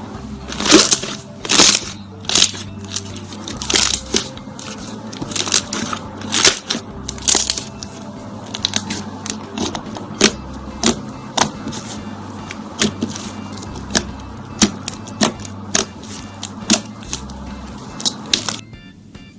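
Slime being pressed and squeezed, giving irregular sharp pops and crackles, a few each second, over quiet background music. The pops stop shortly before the end, leaving the music alone.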